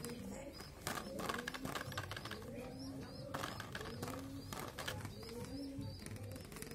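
Hard plastic toy car body and chassis handled and worked on, giving sharp clicks and knocks about a second in, a little later, and again past three seconds. Behind it, a low cooing bird call repeats throughout.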